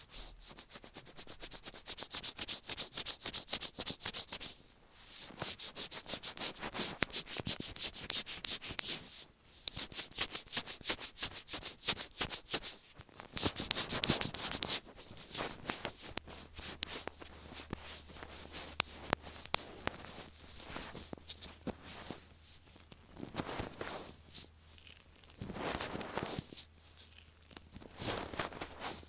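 Rapid rubbing and tapping directly on an earphone microphone, a close, hissy crackle of many small strokes in quick runs. It breaks off briefly about five, nine and thirteen seconds in, and turns softer and sparser after about fifteen seconds, with a few louder runs near the end.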